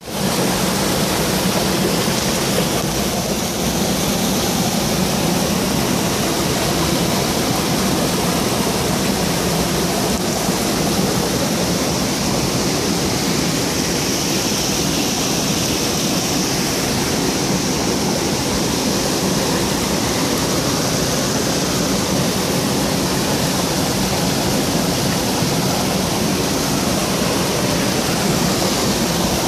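Small waterfall pouring through a narrow cleft in the rocks into a churning pool: a loud, steady rush of water.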